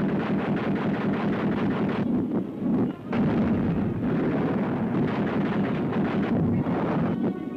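A warship's anti-aircraft guns firing rapidly and continuously, on an old newsreel soundtrack, with a brief lull about three seconds in.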